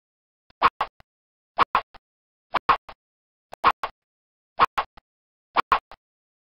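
A short clicking sound repeating about once a second, each time a quick cluster of two or three sharp clicks, the last one fainter.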